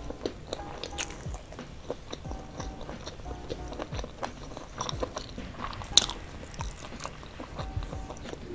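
Close-miked eating of boneless spicy chicken feet: chewing with wet smacks and many small crunchy clicks, with one sharper click about six seconds in.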